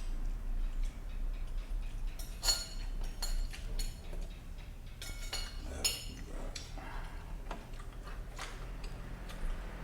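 Cutlery clinking and scraping against a plate while eating noodles: irregular light clicks, a few ringing more brightly.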